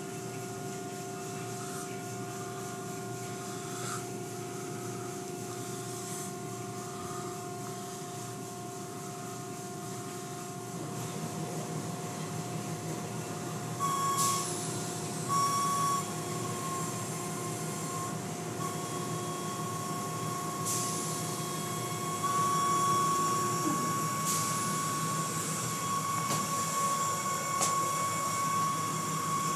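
Automatic car wash machinery running: a steady motor and pump hum with a few held tones, under the hiss of water spraying and brushes and cloth curtains working over a car. The spray grows louder partway through, with two short louder bursts.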